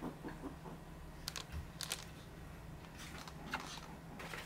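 A few light clicks and taps of snack packaging being handled on a table: plastic icing-pen tubes and a cardboard snack box.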